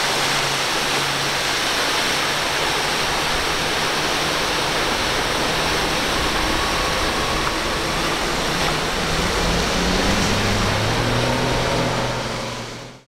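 Steady rushing of waves and boat wake, with the low drone of a center-console boat's twin outboard motors running at speed underneath; the engine tone shifts upward a little near the end, then everything fades out.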